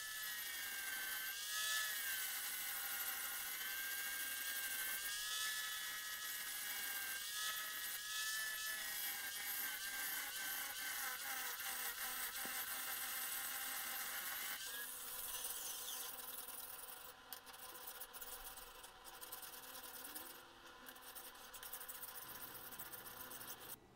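Electric angle grinder with a grinding disc grinding rust pitting off a steel hatchet head: a steady high motor whine over gritty hiss, its pitch wavering as the disc is pressed on and eased off. About fifteen seconds in the whine stops and gives way to a rougher, uneven scraping of a hand file stroked across the steel.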